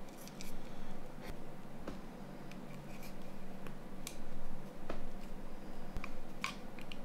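Irregular small clicks and scrapes of hands working on a partly reassembled Nokia N93 mobile phone, fitting its cables and small parts into the metal frame.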